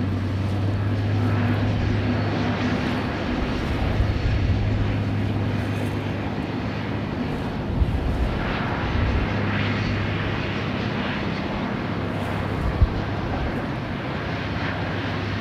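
V/Line Vlocity diesel multiple unit's engines working under load on a steep 1 in 48 climb: a loud, steady drone with a low hum.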